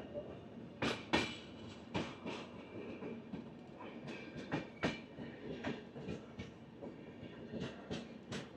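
Passenger train's wheels clacking over rail joints, sharp uneven clicks about one to three a second over a steady rolling rumble.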